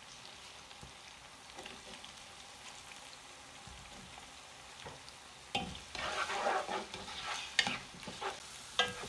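Onions frying in oil in a pan with a faint steady sizzle. About five and a half seconds in, a spatula starts stirring them, scraping and knocking against the pan.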